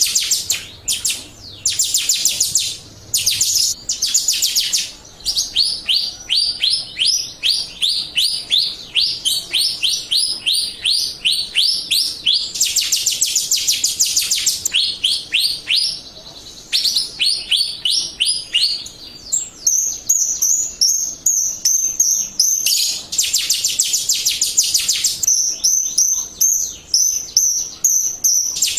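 Jalak Rio starling singing a fast, chattering run of rapid repeated chirps, about eight a second, with short pauses. In the second half, higher clear whistled notes join in.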